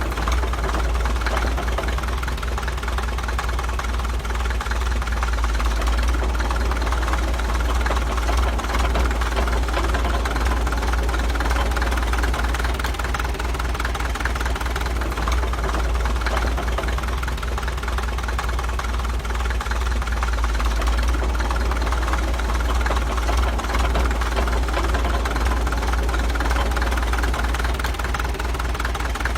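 Caterpillar D2 crawler bulldozer's four-cylinder diesel engine running steadily: a deep rumble with a dense, rapid clatter over it.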